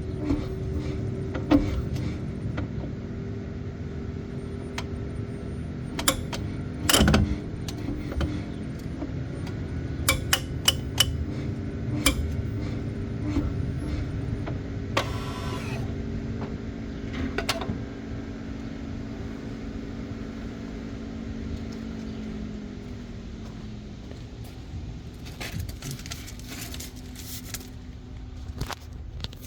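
Cupra Born electric car's rear axle clicking and knocking at irregular intervals over a steady low hum. There are single sharp clicks through the first half, a loud knock about seven seconds in, and a quick run of clicks near the end, while the hum fades out about two-thirds of the way through. The clicking comes with shifting between drive and reverse, the noise the owner is reporting as a rear-axle fault.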